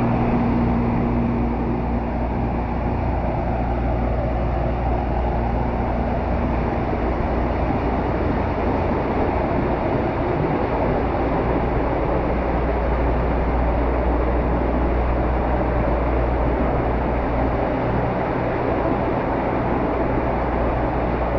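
Artificial rock waterfall pouring into a pool close to the microphone: a steady rush of falling, splashing water.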